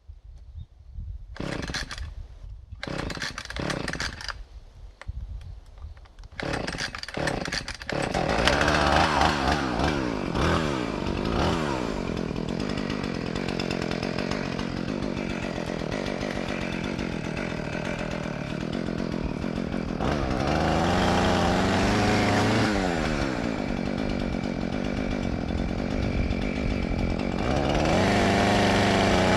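Chainsaw engine, first in several short bursts, then running without a break from about eight seconds in, its pitch rising and falling as the throttle and load change.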